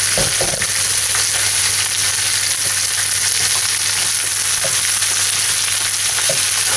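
String beans and eggplant sizzling steadily in hot oil in a frying pan as they are stir-fried, with a few short knocks of the spatula against the pan, mostly about half a second in.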